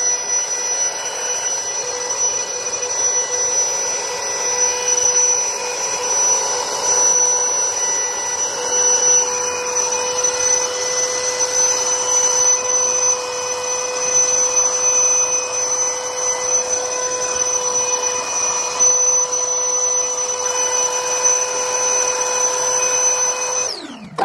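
Parkside PKA 20-LI A1 cordless 20 V air pump running in deflate mode, sucking the air out of an inflatable mattress through its hose: a steady whine over rushing air. Near the end it is switched off and winds down with a falling pitch.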